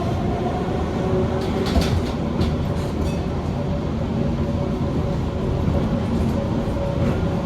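Heritage tram running along the track, a steady low rumble with faint motor tones, and a few sharp clicks from the wheels about two seconds in.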